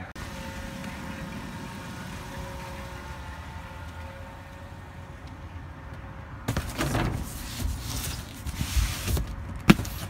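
A steady low rumble with a faint hum. From about two-thirds in, a dumpster's plastic lid is lifted and the cardboard inside shifts, with scraping and rustling and one sharp knock near the end.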